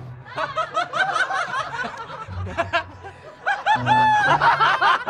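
Young men laughing out loud, several bursts of laughter running together and getting louder near the end, over background music.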